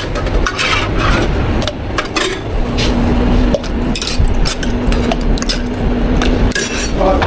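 Cups, utensils and containers clinking and clattering in quick, irregular knocks as a drink is prepared behind a milk tea shop counter, with a steady low machine hum from about two and a half seconds in until shortly before the end.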